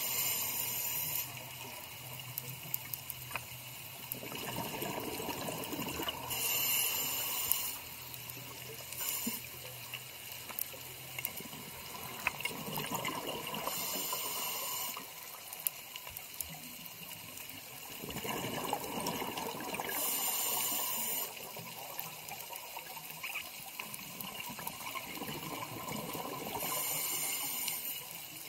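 Scuba breathing underwater through a regulator: a hiss of about a second on each breath, coming back about every six or seven seconds, with rushing, gurgling bursts of exhaled bubbles between them.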